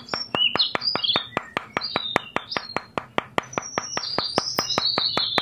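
A small hammer taps miniature wooden posts into place in quick, even light taps, about six or seven a second, while birds chirp.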